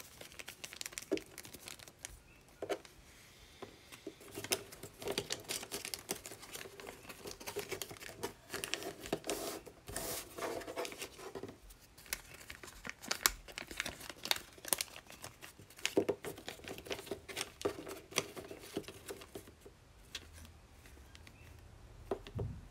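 Magazine paper crinkling and rustling as it is folded and creased by hand, with many sharp, irregular crackles; it quietens near the end.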